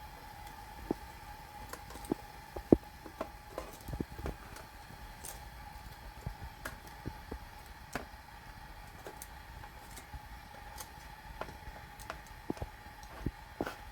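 Scattered, irregular light clicks and crackles, one sharper about three seconds in, over a faint steady hum.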